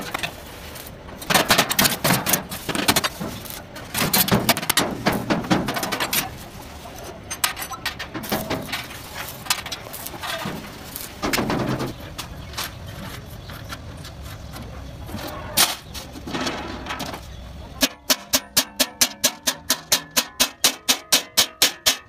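Irregular bursts of metalworking noise on sheet steel, then, near the end, a hammer tapping a centre punch into a steel sheet in quick, even strokes, about four a second, marking out a scribed line.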